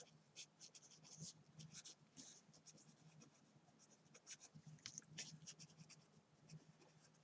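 Faint scratching of a felt-tip pen writing on paper, in many short, irregular strokes.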